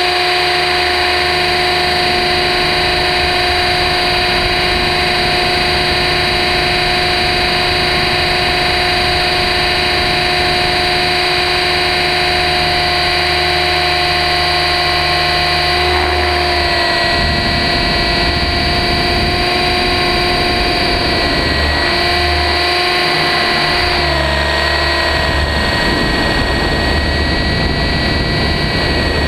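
RC helicopter's motor and rotor heard from a camera mounted on the helicopter: a loud, steady whine of several tones over a rushing noise. The pitch shifts slightly a little over halfway through and again near the end as the flight changes.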